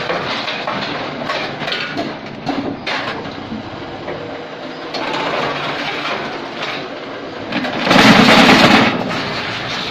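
Concrete block making machine running through a forming cycle, a steady mechanical din with irregular clanks as the mould moves and freshly pressed hollow blocks are pushed out on their pallet. About eight seconds in it becomes much louder for roughly a second.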